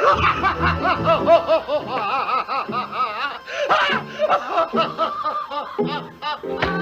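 High-pitched snickering laughter: a fast run of short notes, each rising and falling in pitch.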